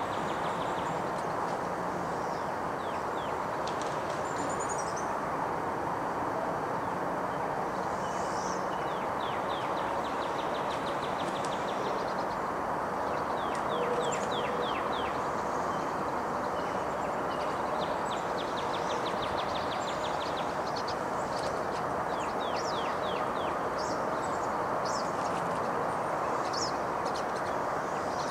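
Small birds giving repeated rapid trills of ticking notes, with scattered higher chirps, over a steady background rush. No call from the crane stands out.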